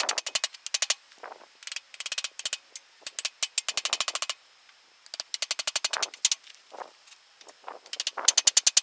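Power impact driver hammering in repeated short bursts of rapid, evenly spaced clicks, each burst about half a second to a second long with brief pauses between, as bolts are run in.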